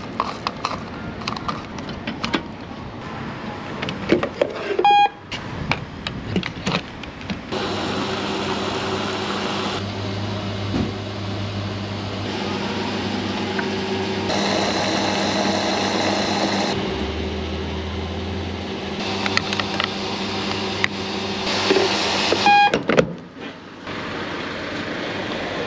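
Service-station fuel dispenser pumping diesel into a car's tank: a steady motor hum with the rush of fuel through the nozzle. A short beep sounds about five seconds in and the pump starts a couple of seconds later. It stops near the end with another beep.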